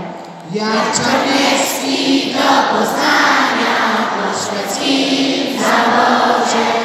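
A choir of young voices singing a song together, holding long notes in phrases, with a short break for breath about half a second in.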